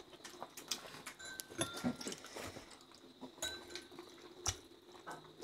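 Quiet eating sounds from people eating momos and soup: scattered small clicks and mouth noises, with a few brief light clinks like a spoon touching a bowl.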